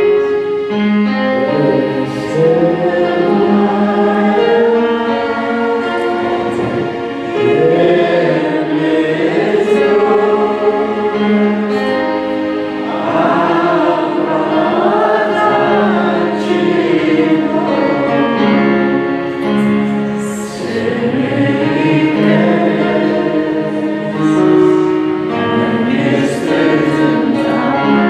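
Voices singing a worship song together over held keyboard chords.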